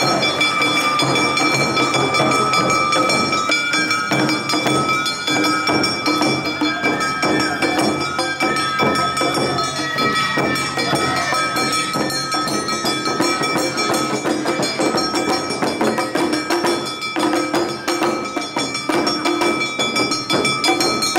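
Awa Odori procession music (narimono): shinobue bamboo flutes carrying the melody over shamisen, taiko drums and a brass kane hand gong struck steadily with a mallet, in a fast, driving rhythm that runs without a break.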